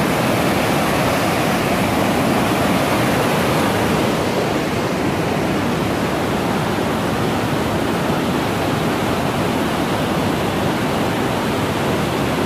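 Mountain creek rushing in white water over boulders and small falls: a loud, steady rush of water.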